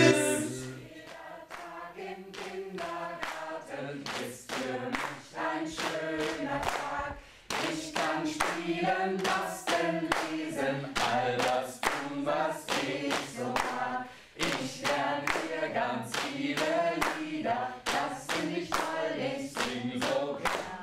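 A group singing a cheerful German children's song about kindergarten in unison, with steady hand clapping on the beat.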